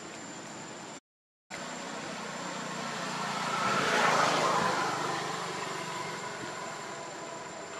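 A vehicle passing: a rushing noise that swells to a peak about four seconds in and fades away, over a steady background hiss with a thin high steady tone. The sound cuts out completely for about half a second about a second in.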